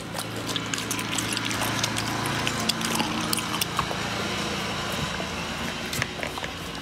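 Chocolate Labrador retriever eating raw meat off a plate: wet licking, smacking and chewing, heard as a rapid, irregular string of small clicks.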